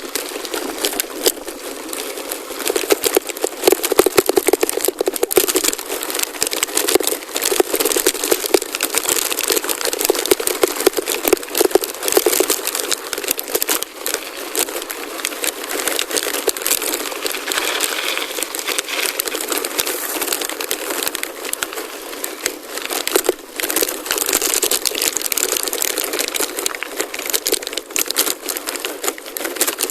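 Gravel bike tyres rolling over a loose gravel forest road: a continuous dense crunch and crackle full of small clicks and rattles.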